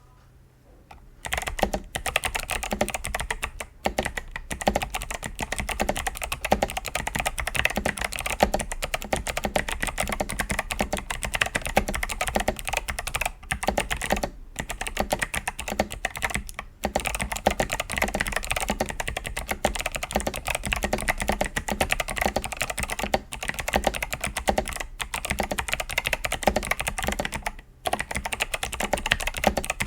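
Fast, continuous typing on an 8BitDo Retro Mechanical Keyboard M Edition with Kailh Box White V2 clicky switches, starting about a second in with a few brief pauses.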